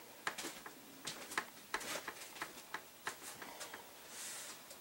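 Faint, irregular light clicks and taps, several a second, with a short soft hiss about four seconds in.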